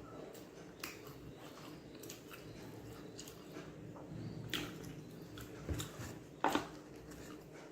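A person chewing and smacking while eating fried rice, with scattered short wet clicks of the mouth. The loudest smack comes about six and a half seconds in.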